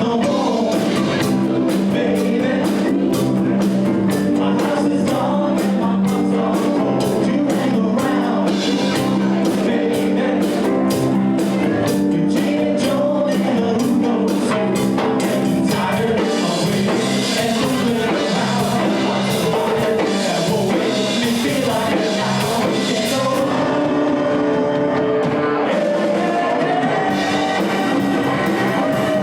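A rock band playing a song, with a singer, guitar and drums.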